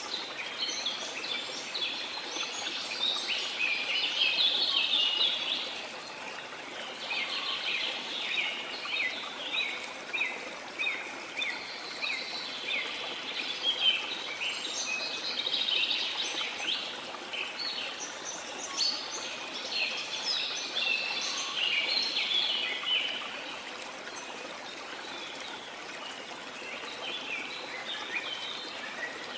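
Many tropical rainforest birds chirping and trilling together over the steady rush of a waterfall. The birdsong thins out for a few seconds near the end, leaving mostly the water.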